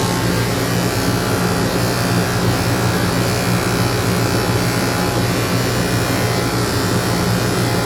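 Electric dog grooming clippers with a #7 blade running steadily, giving an even motor hum.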